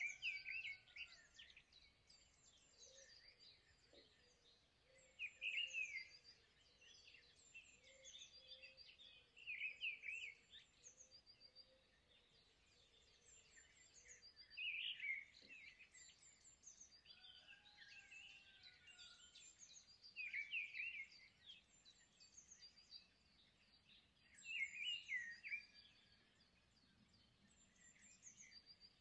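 Faint bird song: short bursts of high chirps and trills, repeated about every four to five seconds.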